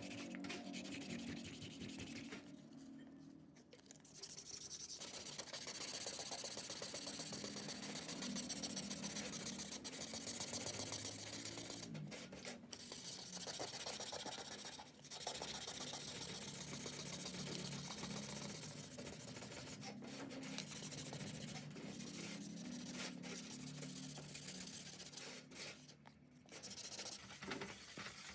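Steady hand rubbing and scraping on a ceiling fan part, with a few short pauses.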